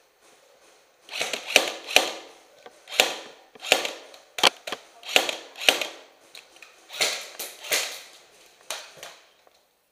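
Airsoft gunfire: about a dozen sharp shots and cracks at an irregular pace, starting about a second in and stopping near the end.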